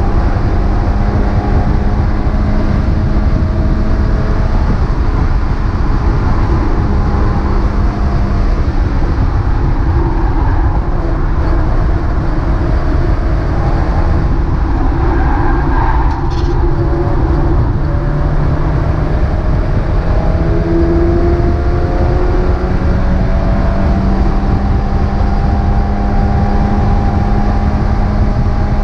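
Mazda MX-5 race car's four-cylinder engine running hard, its pitch dropping and climbing again as it is driven through the corners. A brief sharp click about 16 seconds in.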